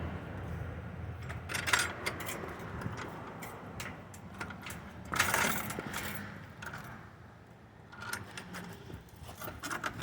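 Scattered rustling and clinking over a low steady rumble, with louder bursts about two and five seconds in.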